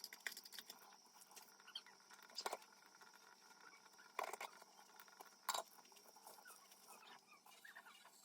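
Near silence, broken by four faint sharp clicks a second or two apart and a few soft, short squeaks.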